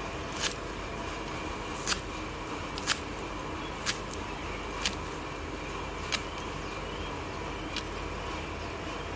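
Kitchen knife chopping green onion stalks on a wooden cutting board: about seven crisp chops, roughly one a second, over a steady background noise.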